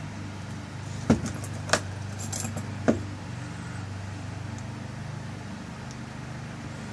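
Small metal lock-cylinder parts clicking and clinking in the hands as the tailpiece is fitted and screwed back onto the rekeyed cylinder: three sharp clicks in the first three seconds with lighter clinks between them, over a steady low hum.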